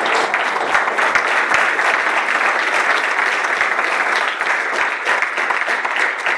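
Audience applauding, a dense, even patter of many hands clapping at a steady level.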